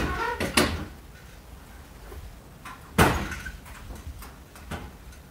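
Metal knocks and clanks from a horse trailer's rear door and latch being worked by hand. There are sharp knocks at the start and about half a second in, and a louder, briefly ringing bang about three seconds in, with a few lighter clicks after it.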